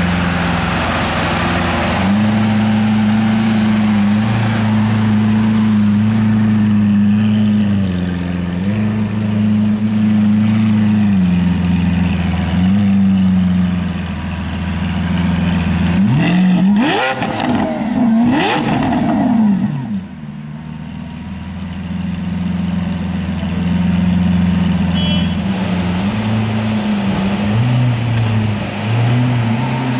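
Lamborghini Aventador Roadster's V12 with sports exhaust idling loudly, blipped in two sharp revs about halfway through, then settling back to idle.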